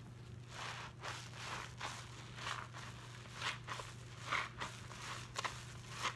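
Soap-soaked sponges squeezed and kneaded by hand in a bowl of thick suds, giving a run of wet squelching, crackling squishes, about one or two a second.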